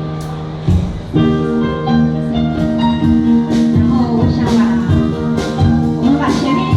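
Music: held chords that change about a second in, over a steady drum beat.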